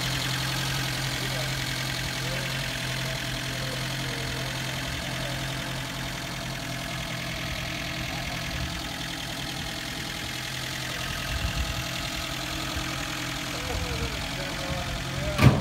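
Vintage MG roadster's engine idling steadily, its low hum fading after about eight seconds. A single sharp click near the end.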